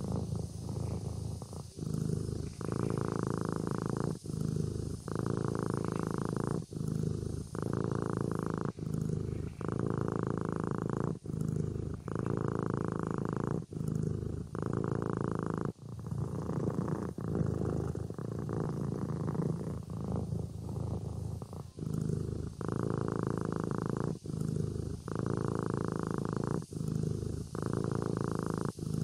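Kitten purring in its sleep: a steady rumbling purr that breaks off briefly every second or two, alternating with each breath in and out.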